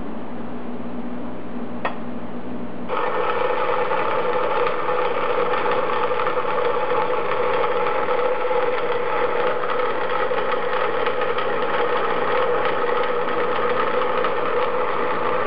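A steady low hum with a single sharp click of a centre punch. About three seconds in, a bandsaw starts cutting through an aluminium plate: a steady, loud metal-cutting sound with a strong ringing tone that runs on.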